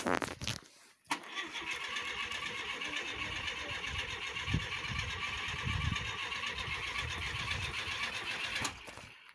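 Starter cranking the 1976 Citroën GS Club's air-cooled flat-four engine for about seven seconds, a steady whir over uneven low pulses, then stopping abruptly near the end. It is a renewed start attempt right after a stall, on an engine left standing for two months through a very cold winter.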